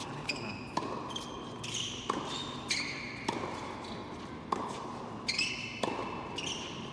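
Tennis ball struck by rackets and bouncing on an indoor hard court during a rally, sharp knocks about every half second to second, echoing in the hall. Short high squeaks of players' shoes on the court come in between the hits.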